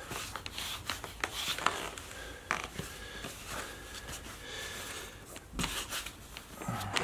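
Hands rubbing and tugging at trouser fabric and the leather of new black Blundstone Chelsea boots: faint rustling and scuffing with a few light clicks, and a soft thump near the end.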